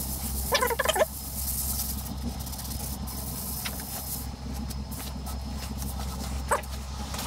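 A Scotch-Brite pad scrubbing the cast-iron slideways of a Bridgeport milling machine's knee: a steady rubbing hiss over a low hum, with a short squeaky warble about half a second in and a rag wiping the metal near the end.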